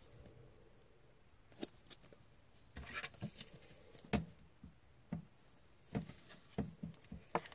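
Scattered light clicks, taps and scraping of a trading card and a rigid clear plastic card holder (toploader) being handled with gloved hands, as the card is slid into the holder. The first second and a half is nearly still, and the taps come thicker near the end.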